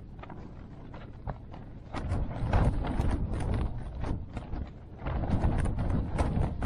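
Wind gusting against the fabric of a Tipik-tentes Aston tent, the fabric flapping and snapping over a low rumble of wind. The gusts pick up about two seconds in and again about five seconds in.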